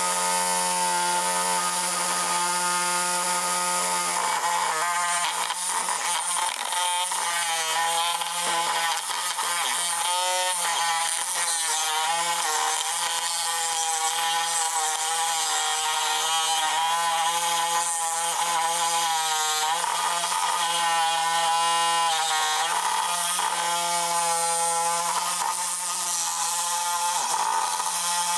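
DeWalt 20V cordless reciprocating saw with a bi-metal blade sawing through the hardened strip steel of a Catstrap on an exhaust pipe. The motor runs steadily with its pitch dipping and recovering every second or two as the blade bites. The saw is making only slow progress into the hardened steel.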